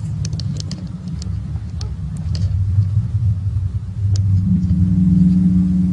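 Loud, low droning rumble of an unexplained sky sound, like a really big train or ship horns. About four and a half seconds in, a steady horn-like tone rises over the rumble.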